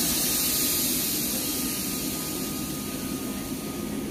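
Steady loud hiss of compressed air venting from a train, over the low rumble of the passing freight train, easing slightly in the second half.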